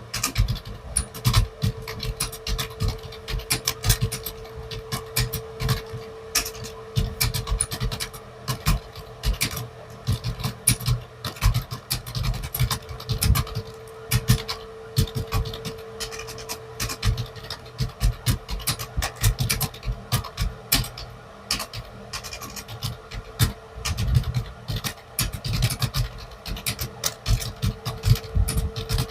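Fast, continuous typing on a computer keyboard, keys clacking several times a second in uneven runs, over a faint steady hum.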